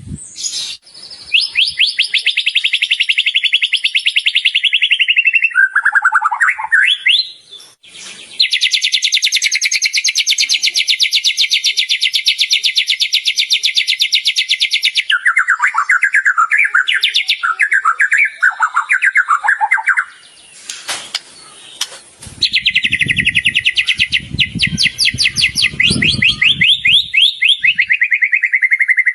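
White-rumped shama (murai batu) singing at full voice: long, fast, high trills, broken in the middle by lower warbling phrases of mimicked song. A few low thumps sound under the song in the last few seconds.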